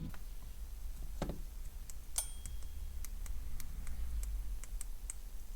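Scattered light clicks and ticks of small tools and parts being handled at an electronics workbench, with one duller knock about a second in and a sharper click soon after, over a steady low hum.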